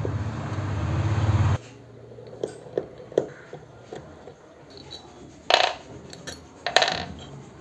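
Small metal clicks and clinks as the three case screws of a motorcycle self-starter motor are undone and the parts handled, with two louder clinks in the second half. A steady low hum runs for the first second and a half and cuts off abruptly.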